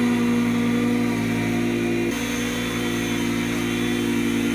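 Scag V-Ride II stand-on mower's engine running steadily while mowing, with a sudden small change in its sound about two seconds in.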